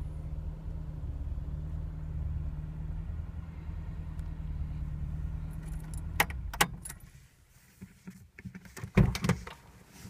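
Ford Cortina Mk5 engine idling steadily, heard from inside the cabin. About six seconds in, a few sharp clicks come as the ignition key is turned and the engine stops. Near the end there are a couple of louder knocks and a jingle of the keys.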